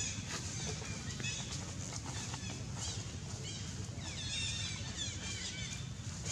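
Small birds chirping in quick, repeated short notes over a steady low outdoor rumble, the chirping busiest through the second half.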